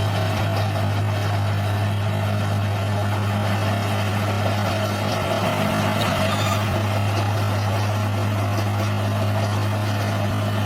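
Bulldozer's diesel engine running steadily at a constant speed, a low, unchanging hum.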